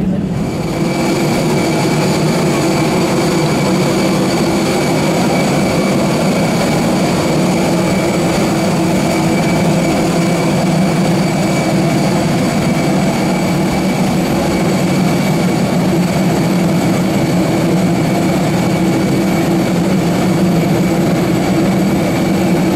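Airbus A320 jet airliner heard close by at its stand: a steady high turbine whine with several sharp tones over a strong low hum, unchanging throughout.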